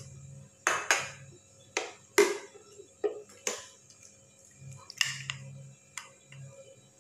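Soup ladle clinking against a glass bowl while prawn soup is spooned in, with short splashes of broth. There are about nine sharp clinks and splashes, each half a second to a second apart.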